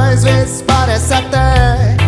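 Reggae band playing live: a strong electric bass line with guitar and drums under a bending melody line, likely a singing voice.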